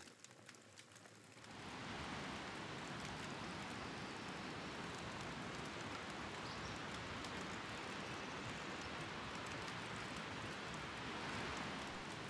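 Steady rush of a flowing mountain creek, an even wash of water noise that comes up about a second and a half in and swells slightly near the end.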